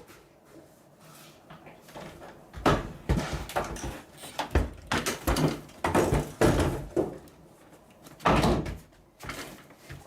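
A series of irregular loud bangs and knocks, beginning about two and a half seconds in, with the heaviest blows around six and eight seconds in.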